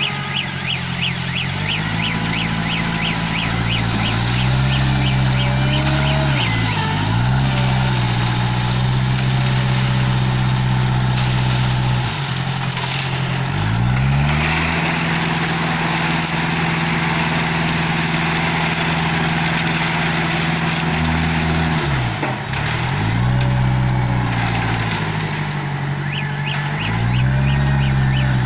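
Diesel engine of a self-loading concrete mixer running under load. Its speed drops sharply and picks up again four times. A rapid run of high-pitched pips, about three a second, plays at the start and again near the end, and a hiss comes in through the middle.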